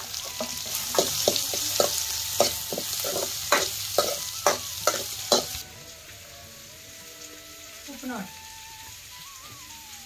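Chopped onions and tomato sizzling as they fry in a black iron kadai, with a steel spoon stirring and clacking against the pan about twice a second. About halfway through, the sizzling and clacking cut off abruptly, leaving a quieter stretch with faint tones.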